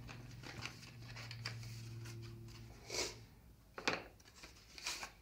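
Rustling and rubbing of a stiff cardboard box being handled and its lid slid open, with a sharp click just before four seconds in. A low steady hum sits under the first three seconds.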